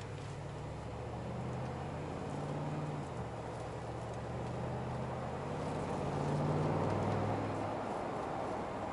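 2019 Mercedes-AMG G63's twin-turbo 4.0-litre V8 heard from inside the cabin on the move, over steady tyre and road noise. The engine note climbs, drops about three seconds in, climbs again and drops near the end.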